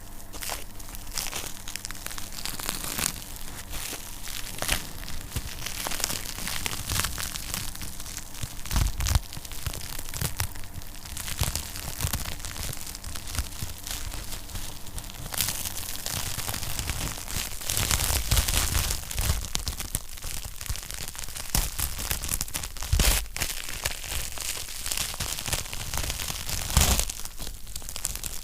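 Wood fire in a fireplace crackling steadily with dense small snaps and a few louder pops.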